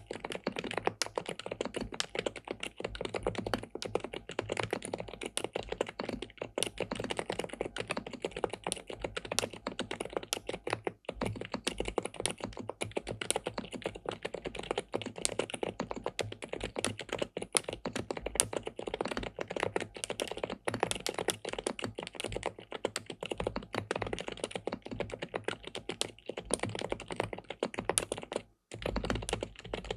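Fast, continuous typing on an SPM PL87W 'Mongdol87' tenkeyless mechanical keyboard with linear switches and a polycarbonate plate: a dense stream of key clacks, with a brief pause near the end.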